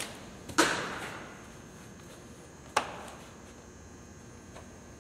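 Thrown baseballs smacking into leather gloves twice: a loud echoing pop about half a second in, then a second smack near the three-second mark.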